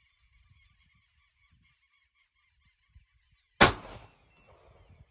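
A single 9mm pistol shot from a Taurus G3 about three and a half seconds in, one sharp report with a short decaying tail. It is the last handloaded round in the magazine, and the slide locks open on it.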